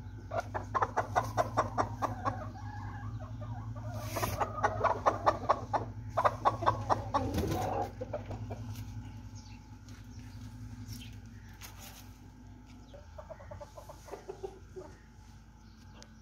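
Chicken clucking in rapid runs of short notes for the first eight seconds or so, then only a few scattered clucks near the end, over a steady low hum.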